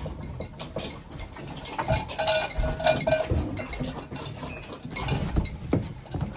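A farm animal's call, one wavering cry lasting about a second, heard about two seconds in, among shuffling, knocks and light clinks.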